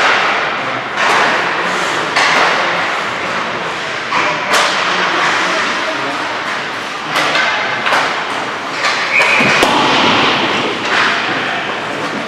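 Ice hockey practice in a rink: skate blades carving the ice under a steady hiss, with sharp clacks and thuds of pucks and sticks echoing off the boards every second or so, the hardest about ten seconds in.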